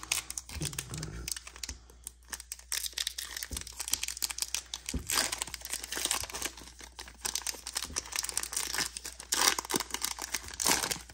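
Foil wrapper of a Pokémon TCG Lost Origin booster pack crinkling and tearing as it is opened, an irregular run of crackles throughout.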